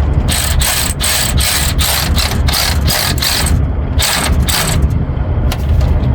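Ratchet wrench clicking in quick strokes, about three a second, as a bolt is tightened down after tensioning a new APU drive belt; it pauses briefly about three and a half seconds in, then clicks twice more.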